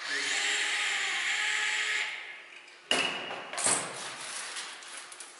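Handheld cordless drill-driver running in one steady burst of about two seconds, then slowing down. It is followed by a few sharp clicks and knocks, the loudest about three seconds in.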